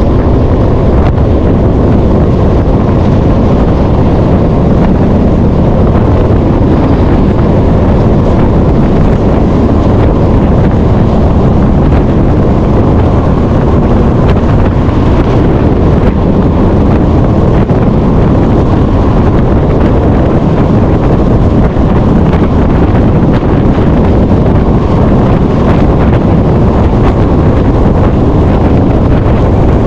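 Semi truck driving down the road: a loud, steady rumble of engine and road noise, with wind buffeting the microphone.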